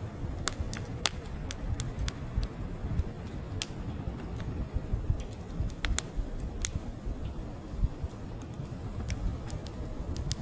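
Split-log wood fire crackling, with irregular sharp pops and snaps over a low, steady rumble.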